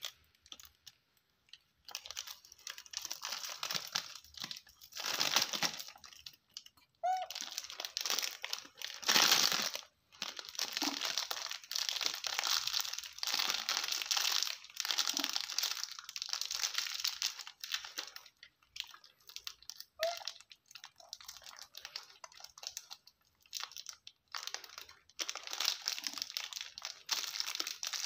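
Crinkling and crumpling of a foil-lined plastic snack wrapper as a baby monkey tugs at it while a person holds it. It comes in irregular bursts with short gaps and is loudest about nine seconds in.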